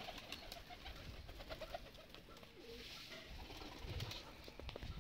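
A flock of domestic pigeons cooing softly as they feed, with many small clicks of beaks pecking seeds off concrete. A few low thumps come about four seconds in.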